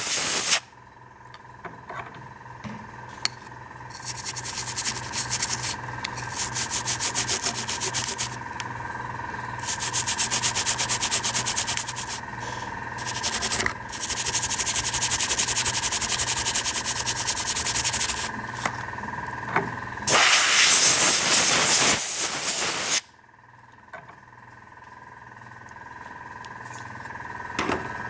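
Wet toothbrush bristles scrubbing rapidly back and forth over the edges of a plastic miniature, wearing the paint off to make a weathering effect. A loud hiss of air from an airbrush comes right at the start and again for about three seconds later on, over a faint steady whine.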